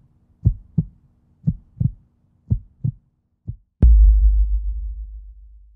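Heartbeat sound effect: three pairs of low thumps about a second apart, then a single thump. Just before four seconds in, a heavy bass impact hits, and its deep rumble slowly fades away.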